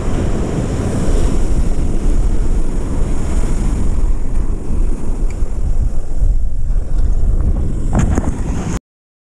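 Wind buffeting the microphone over surf breaking on a beach, a steady low rumble with a hiss above it. A few short handling knocks come near the end, then the sound cuts off suddenly.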